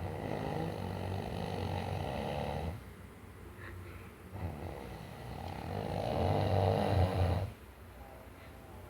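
A person snoring in sleep: two long snores of about three seconds each, a little over a second apart, the second louder.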